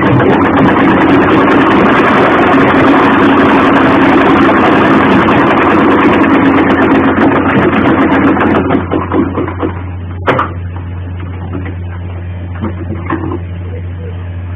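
Black domestic sewing machine stitching fabric, running steadily for about eight seconds and then stopping, followed by a single click. A steady low hum continues underneath throughout.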